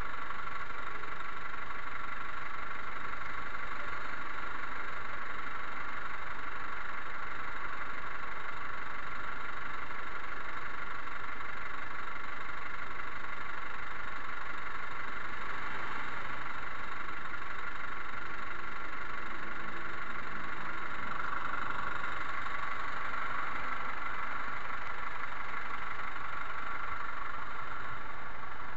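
Honda CBR250 motorcycle engine idling steadily while stopped.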